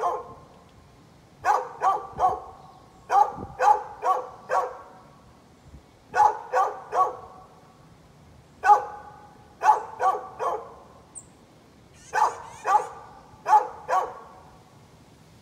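Dog barking over and over in quick volleys of three to five barks, a new volley every couple of seconds.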